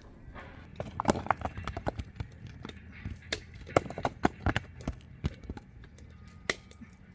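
Stones clacking against other stones as they are tossed onto a pile: a quick, irregular run of sharp knocks from about a second in, thinning out, with one more knock near the end.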